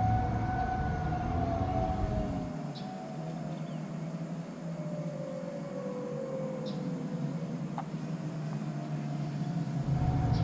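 Federal Signal Modulator outdoor warning siren sounding its wail test cycle. Its tone slides slowly down and back up, with a low rumble under it at the start and again near the end.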